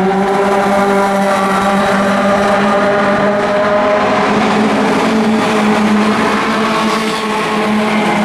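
Racing sports prototype's engine running hard at high revs. The pitch eases slowly down and dips briefly before picking up again near the end.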